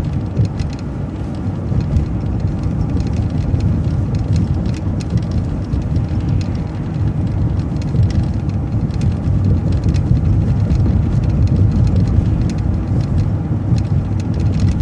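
MCO ViewMaster transit bus driving along a road: a steady low rumble of engine and road noise, with faint light rattles, swelling a little toward the end.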